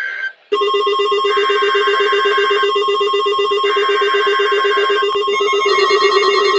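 NOAA Weather Radio alert tones starting abruptly: a steady high alarm tone over a rapid low buzzing tone. Bursts of warbling two-tone data signal come and go every couple of seconds on top, the coded header of a weekly alert test.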